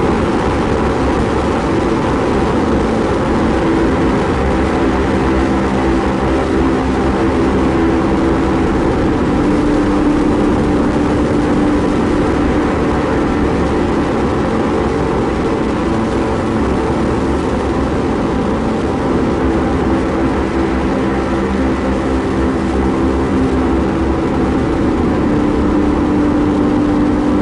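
Ambient drone-and-noise music: a steady, dense wash of hiss and rumble with held low tones that shift slightly in pitch now and then.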